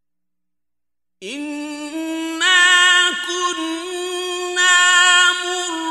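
Silence for about the first second, then a male reciter chanting the Quran in the ornamented mujawwad style: long held notes at a steady pitch with small melodic turns, swelling louder about two and a half seconds in.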